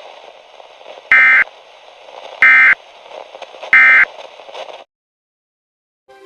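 Emergency Alert System end-of-message data bursts: three short, loud buzzing squawks of digital SAME code tones about 1.3 s apart over a faint hiss, the signal that closes an emergency alert broadcast. The hiss cuts off a second after the last burst.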